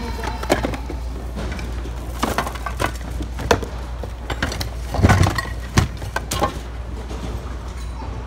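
Scattered knocks, clatters and clinks of secondhand goods being rummaged through in large plastic bins, with a louder cluster about five seconds in, over a steady low hum.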